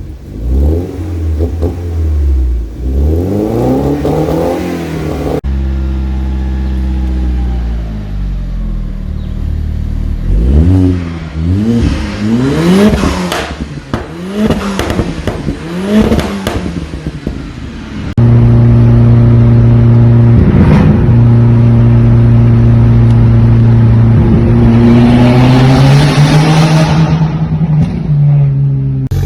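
Modified car engines revving in a run of short clips, with repeated blips that rise and fall in pitch. About two-thirds of the way through, one engine is held at a steady raised speed, then climbs again near the end before dropping.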